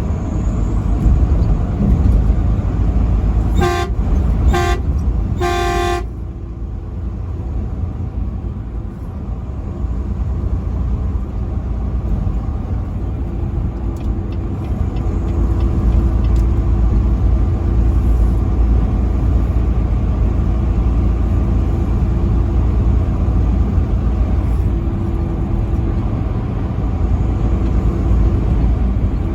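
Truck air horn blown three times in quick succession, about four seconds in: two short blasts, then a longer one. Under it is steady low road and engine noise from driving on the highway.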